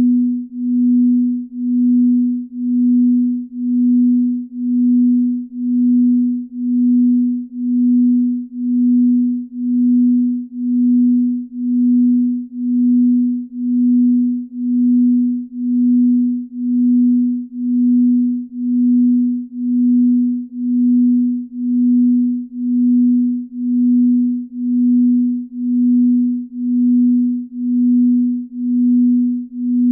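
Binaural-beat sleep tone: a single pure, low tone that swells and fades evenly about once a second, the slow beat between two nearly matched tones.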